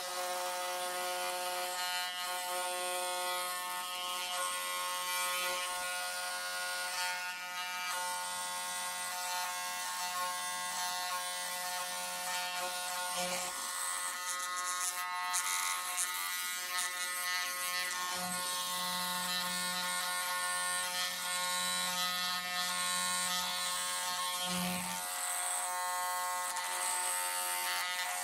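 Wahl electric hair clipper buzzing steadily as it trims the hair along the back of a neck.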